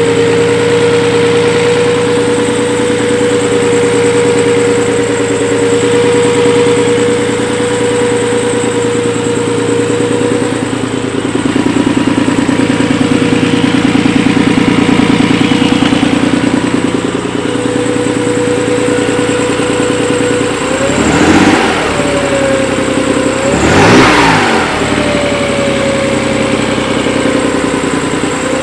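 Nissan 300ZX Z32 engine idling with a steady high-pitched whine over it, blipped twice near the end, the whine bending in pitch with each rev. The owner suspects the whine comes from a vacuum leak, possibly a plenum gasket he fitted wrong after the motor swap.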